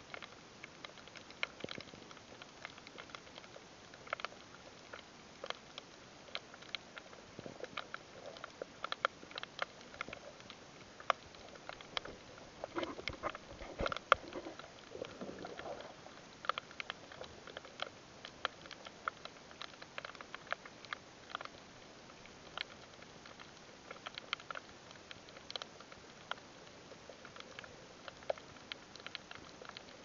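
Underwater crackle of a shallow rocky seabed: a continuous scatter of irregular sharp clicks, several a second. A brief lower, wavering sound comes near the middle.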